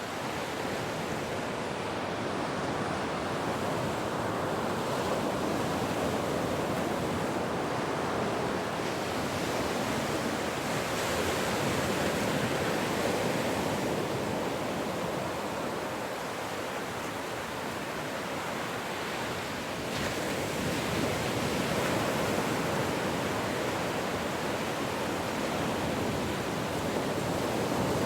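Ocean surf: a continuous wash of breaking waves that swells and eases slowly every several seconds.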